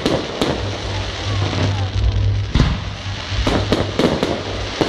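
Fireworks bursting in the sky: a string of sharp bangs, two near the start and a quicker cluster in the second half, over a steady background rumble.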